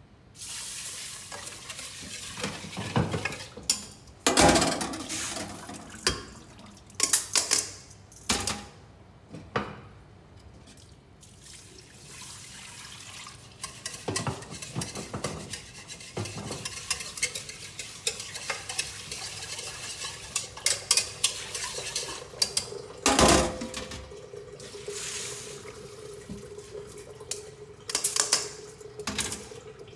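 Rice being washed in a stainless steel pot at a kitchen sink: water running and pouring while the rice is stirred, with a whisk and the pot clinking and knocking against metal. Near the end the rinse water is poured off with a steady ringing tone.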